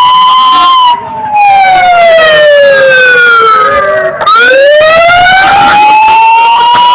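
A loud siren wail, one tone with strong overtones. It slides slowly down in pitch for about three seconds, breaks off briefly, then climbs slowly back up.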